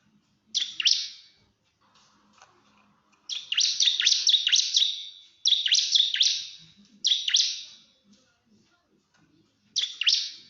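Bar-winged prinia (ciblek) giving rapid, sharp, high chattering calls in five bursts, the longest a run of nearly two seconds about three seconds in, with short pauses between.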